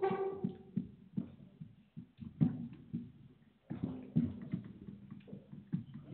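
Irregular knocks and rustles of papers, chairs and footsteps on a tiled floor around a meeting-room table, with a brief pitched tone at the very start.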